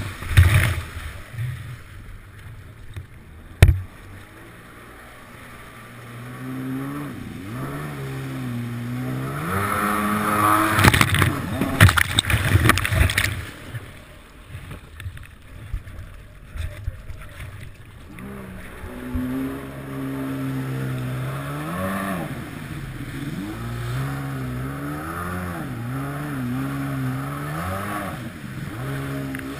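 Kawasaki 750SX stand-up jet ski's two-stroke engine revving up and down as the ski turns and spins, with water spraying and slapping against the hull. There is a sharp knock a few seconds in, and a loud rush of spray around the middle.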